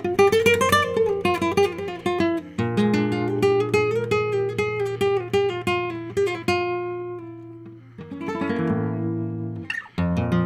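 Solo Spanish guitar played fingerstyle in a flamenco minera: a quick run of plucked notes, a picked passage over a held bass that dies away around the seventh second, then a ringing chord and a sharp strum near the end as the playing picks up again.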